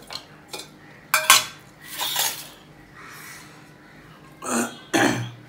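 Fingers scraping and clinking on a stainless steel plate while eating by hand. A sharp metallic clink comes about a second in, with several shorter scrapes and eating sounds around it.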